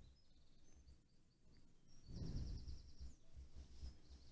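Very quiet: faint scratching of a ballpoint pen shading on paper, with a few faint high chirps in the background.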